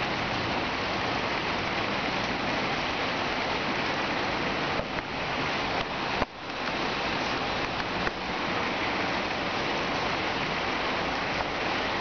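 Steady hissing noise with no tone in it, dipping briefly a few times, most sharply a little past the middle.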